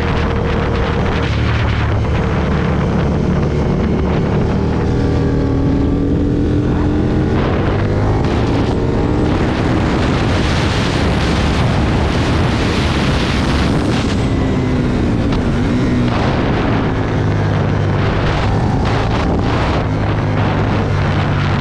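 Aprilia Tuono motorcycle engine running hard at track speed, buried in heavy wind noise on the microphone, its pitch rising and falling with throttle and gear changes.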